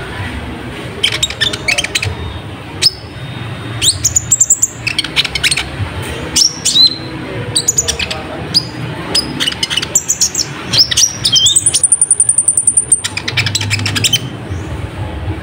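Brown-throated sunbird (kolibri ninja) singing vigorously: a quick run of sharp chirps and upward-sweeping notes, with a fast high trill about three-quarters of the way through.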